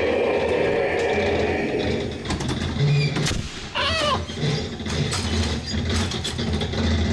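A dark-ride car rattling and clanking along its track: a steady hum at first, then about two seconds in a run of knocks and clicks with low thuds. A short squeal rises and falls about four seconds in.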